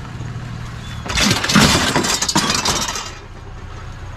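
A vehicle engine idling with a steady low hum, broken about a second in by a loud two-second burst of clattering noise.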